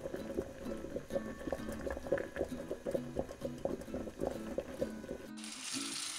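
Water at a rolling boil in a pot, bubbles popping irregularly. About five seconds in it cuts abruptly to a steady hiss, with background music.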